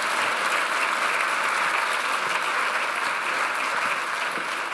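A large seated audience applauding steadily in an auditorium, a dense sound of many hands clapping together that eases slightly near the end.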